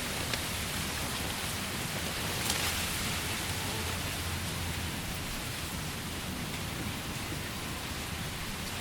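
Steady rain falling on a tent, with a brief louder patch about two and a half seconds in.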